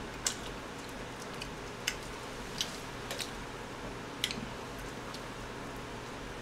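Quiet eating sounds: a handful of short, sharp clicks and taps from metal chopsticks and a mouthful of egg roll, spread unevenly over a steady low hum.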